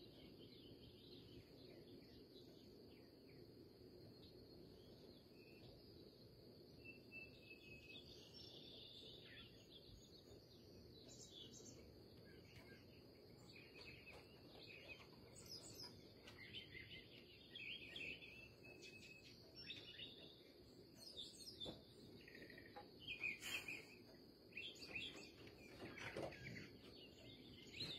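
Songbirds singing and chirping in the early morning, faint, with short calls coming more often and louder in the second half.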